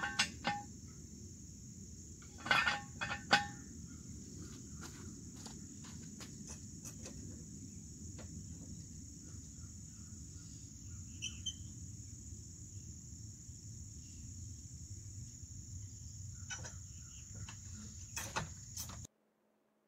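Steady high-pitched drone of insects, over a low background rumble. A few sharp metal clanks cut through it, the loudest near the start and about three seconds in, from jack stands and a floor jack being worked under a boat trailer. Fainter clicks come later.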